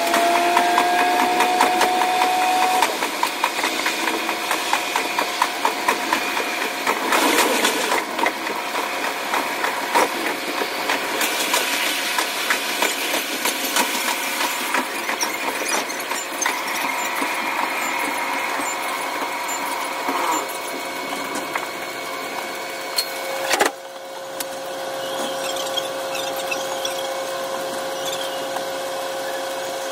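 A KiHa 185 diesel railcar's cab sound played back sped up: a high, pitched-up engine note with a rapid stream of clicks from the wheels running over the rails. A tone rises over the first few seconds, and a single sharp crack comes near the end, after which it is quieter.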